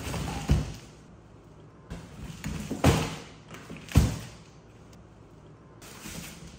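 Cardboard box knocked and scraped as a small monkey climbs in and moves about inside, with sharp thumps about half a second in, near three seconds and at four seconds, and rustling between them.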